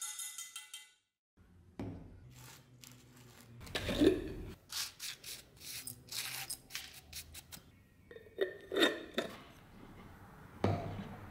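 A glass jar being handled on a workbench: set down with a knock about four seconds in, then scattered clicks and scrapes as its metal screw lid is twisted on.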